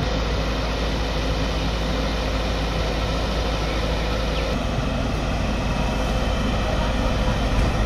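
Heavy machinery running, a steady low engine rumble mixed with noise, shifting slightly in tone about halfway through.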